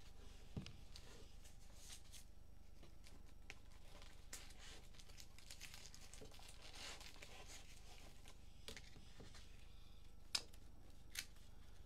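Faint rustling and shuffling of trading cards being handled and sorted, with a couple of light clicks near the end.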